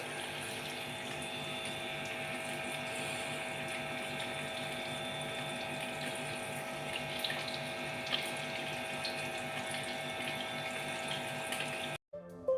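A pot of kahwa boiling steadily on the stove, water bubbling over a steady hum. It cuts off abruptly near the end.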